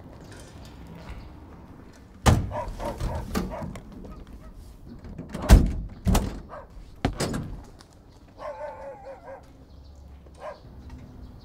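A dog barking several times, in short separate barks, the loudest a little past the middle.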